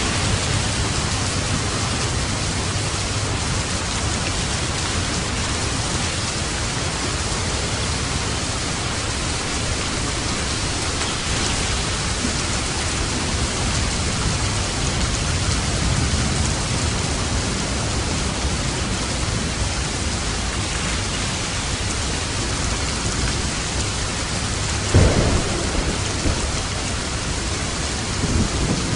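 Steady rain on a roof with low rolling thunder, and a sharper, louder thunderclap near the end.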